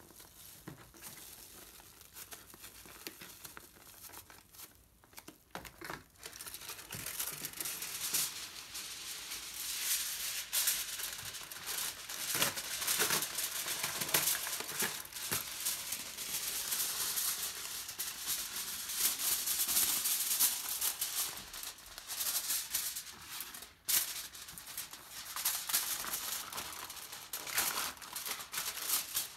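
Aluminium foil crinkling and rustling as a sheet is pulled from the roll and folded tightly around a small package. It is softer paper rustling for the first several seconds, and the foil noise gets louder and busier from about seven seconds in.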